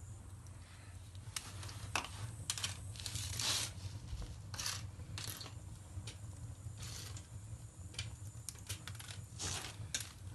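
Wood fire crackling in a fireplace: irregular sharp snaps, bunched about three seconds in and again near the end, over a low steady hum.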